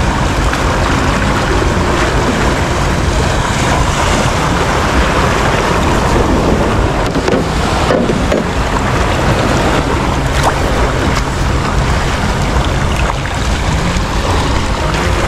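Steady wash of choppy sea water and waves around a wading fisherman, with wind on the microphone.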